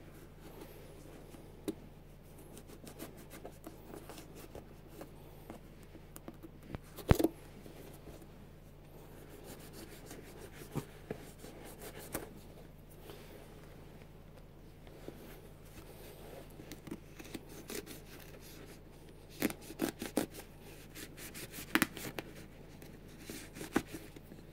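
Nike Air Max 90 sneaker upper being cut and torn apart by hand: scattered small clicks and scratching, one loud click about seven seconds in, and a quick run of clicks in the last few seconds.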